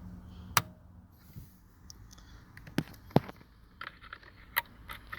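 A handful of light, separate clicks and knocks from plastic steering wheel wiring connectors being handled and plugged back in. The sharpest click comes a little after three seconds in.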